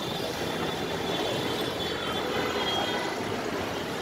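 Steady traffic noise from a busy street, with no distinct single event.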